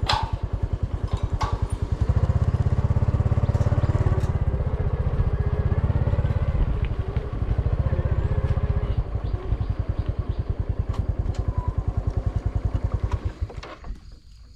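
Motorcycle engine running under way with an even, rapid pulse. It grows louder about two seconds in and eases back after about nine seconds, then falls away near the end as the bike slows.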